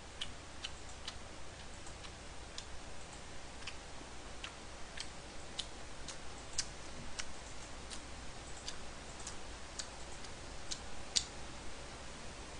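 Faint, irregular sharp ticks and pops, about one every half second to a second, with a louder one about eleven seconds in, over a faint steady low hum.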